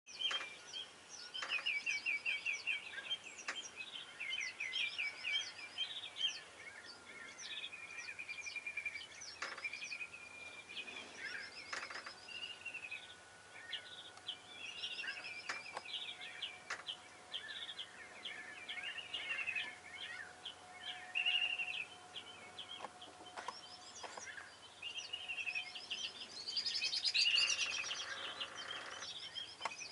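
Wild birds calling and singing throughout: many short chirps and quick, rapidly repeated trills, busiest at the start and again near the end.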